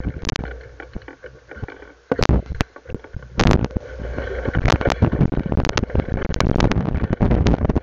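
Irregular knocks and rattles of a bicycle and its mounted camera jolting over a rough, overgrown trail, with a low wind rumble on the microphone. The knocking eases for a couple of seconds, then comes thick and fast again.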